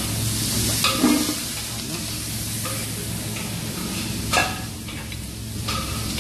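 Fat sizzling steadily in a frying pan on the stove, with a few knocks of pans and plates, the sharpest about a second in and a little past four seconds.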